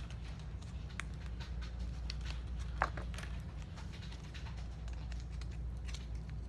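Light clicks and taps of stiff 3 mm PVC puzzle pieces being pushed into their slots and handled against a tabletop, with one sharper click near the middle, over a steady low hum.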